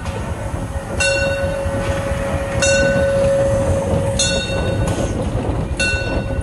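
Steam locomotive 99 7203 moving slowly past at close range, its running gear rumbling. Sharp exhaust beats come about every one and a half seconds, over a steady hiss and tone.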